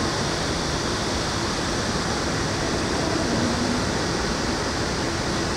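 Steady outdoor city ambience: an even, unbroken rushing noise with no distinct events.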